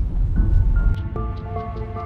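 Background music: slow held notes that step down in pitch, entering about half a second in.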